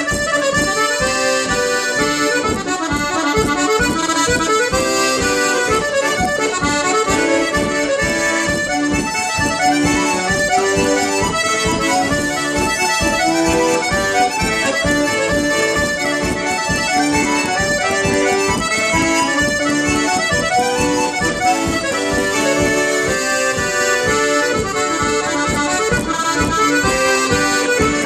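Solo piano accordion playing a traditional dance tune, a quick, steady stream of notes.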